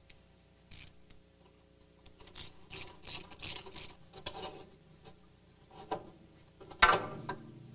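Shock absorber being worked down and out through the lower control arm of a GM double A-arm front suspension: a run of short scrapes and rubs of metal on metal, then a sharp clank near the end.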